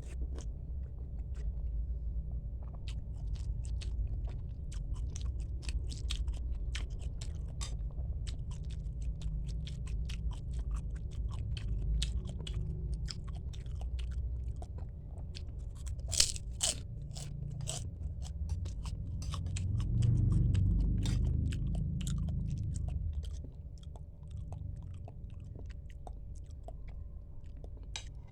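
Chewing and biting while eating bakso (Indonesian meatball soup), with many small wet mouth clicks. A sharper click comes about 16 seconds in.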